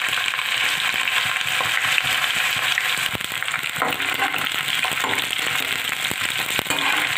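Bitter gourd slices deep-frying in hot oil in a kadhai, a steady dense sizzle. From about four seconds in, a slotted spoon stirs the slices in the oil.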